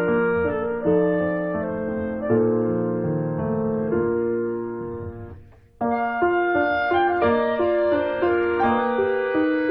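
Background piano music of slow, held chords. It fades away about five seconds in and starts again abruptly a moment later.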